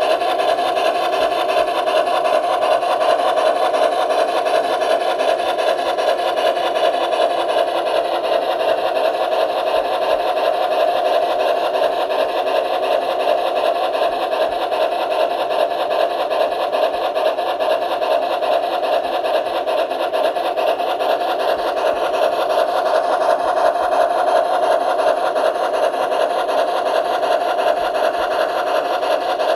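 Bachmann G-scale Two-Truck Climax model steam locomotive running steadily along its track, heard up close from the train: a continuous mechanical running noise of the model and its wheels on the rails.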